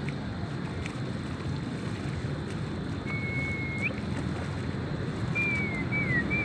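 Steady low rumble of wind on the microphone. A little after halfway there is a thin high whistling tone, held and then rising at its end, and near the end several short falling ones.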